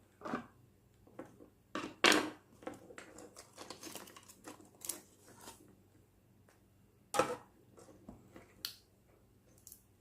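Irregular clicks, taps and small rustles of the plastic parts of a disassembled hair dryer being handled, with two louder knocks, one about two seconds in and one around seven seconds.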